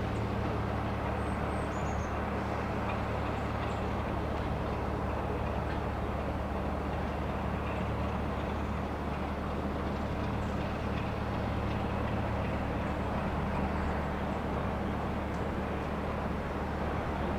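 Class 33 diesel locomotive's Sulzer eight-cylinder engine idling steadily, a constant low hum with no revving.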